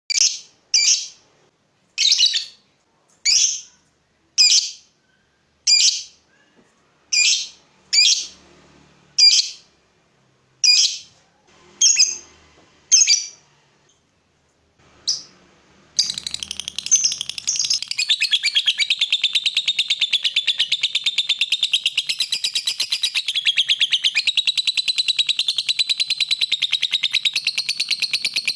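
Lovebird calling: a series of sharp single chirps about once a second, then from about halfway a long unbroken run of very rapid chattering. This is the kind of extended chatter that masteran recordings are made to teach.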